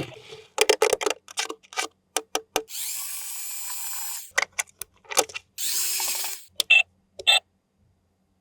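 Sharp plastic clicks and taps from handling a toy and its packaging, broken by two bursts of a high whirring hiss, the first about a second and a half long and the second about half a second.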